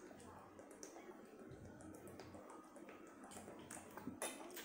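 Faint gulping and swallowing as water is drunk from a plastic bottle, with scattered small clicks, a little louder about four seconds in.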